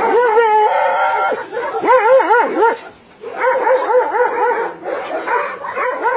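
Dogs whining and yelping in high cries that rise and fall. A long held whine comes in the first second, then runs of short arching yelps follow, several a second, after a brief lull about three seconds in.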